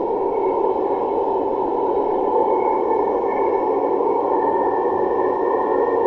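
Metro train running at speed on an elevated track, heard from inside the carriage: a steady rumble of wheels on rails with a faint high whine that shifts slightly in pitch.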